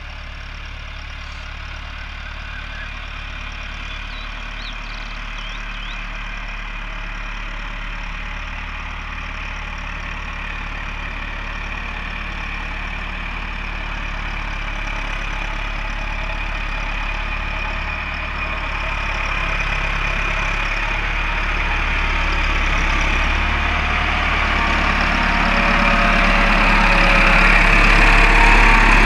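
Farm tractor's diesel engine running steadily as the tractor drives closer, growing louder throughout until it is running right alongside.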